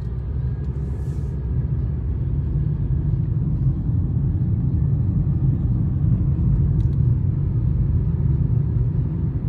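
Steady low rumble of a moving car's engine and tyres on the road, heard from inside the cabin, growing a little louder about three to four seconds in.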